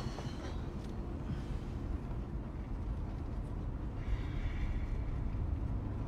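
Steady road and engine rumble of a moving car heard from inside the cabin, with a faint higher hiss joining about four seconds in.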